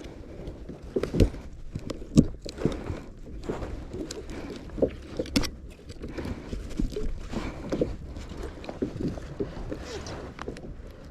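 Irregular knocks and taps of gear being handled on a small fishing boat, over a steady low rumble.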